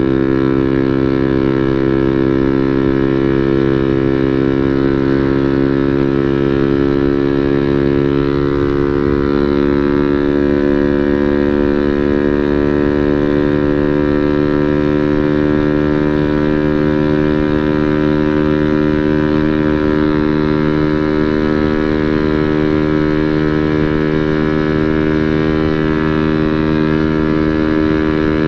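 Motorcycle engine running at a steady speed through a Samlong Vin Project full-system aftermarket exhaust with a drilled baffle and a 38 mm inlet. The pitch rises slightly about eight seconds in.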